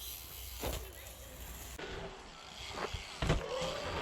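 Faint distant voices over a low outdoor rumble, with a few knocks, the loudest about three seconds in.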